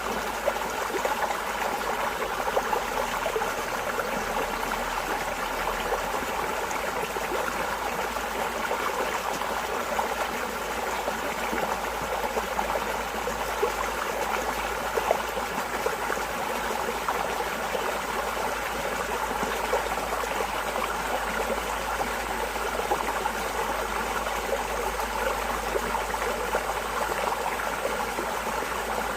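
Shallow stream water running and trickling steadily, a dense babble of small splashes and gurgles.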